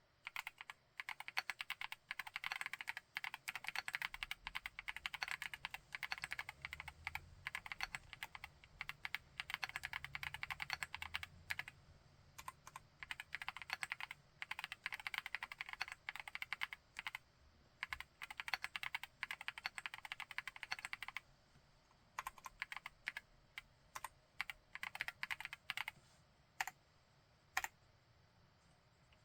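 Chilkey PAW65 full-aluminium 65% mechanical keyboard with Pink Lotus linear switches being typed on. Fast, continuous typing runs for about twenty seconds, then gives way to slower, separate keystrokes.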